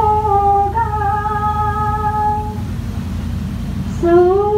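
A woman singing a Hindi song, holding two long, steady notes, then pausing for over a second before starting a new phrase near the end. A steady low rumble from the boat runs underneath.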